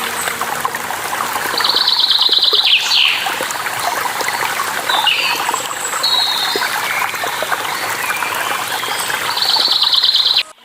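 Steady rush of a waterfall or stream with small birds chirping over it, including two rapid trills, one about two seconds in and one near the end. The sound cuts out abruptly just before the end.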